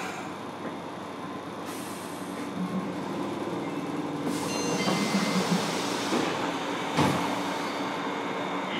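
Fukuoka City Subway 1000N series car interior: the train's running noise, wheels on rail and traction equipment, growing steadily louder, with a brief high whine around five seconds in and a sharp knock about seven seconds in.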